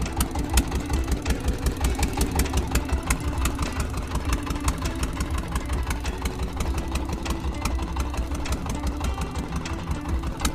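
Motor boat's engine running steadily with a pulsing low rumble, with scattered sharp ticks over it.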